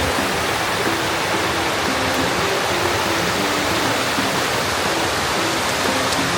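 Steady, loud rush of flowing water from a woodland stream or waterfall, with soft background music notes under it.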